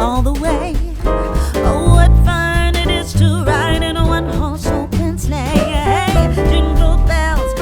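Background music: a song with a sung vocal melody over bass and a steady beat.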